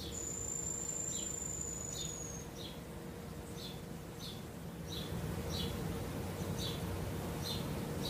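Forest ambience: short high chirps repeating about every two-thirds of a second, with a long thin high whistle that falls slightly over the first two seconds or so, over a low steady rumble.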